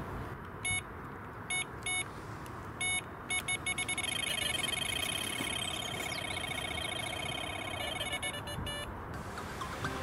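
Electronic carp bite alarm on the rod pod: a few separate beeps, quickening about three and a half seconds in, then an unbroken rapid toning for about five seconds that stops just before the end. A carp has picked up the bait and is running, taking line off the reel.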